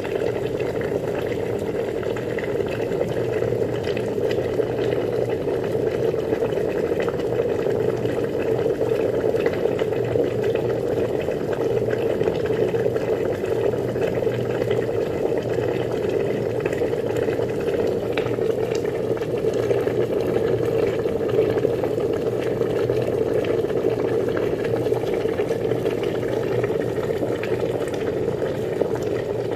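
Water boiling in a pot, a steady dense bubbling with fine crackle, along with a faint low steady hum.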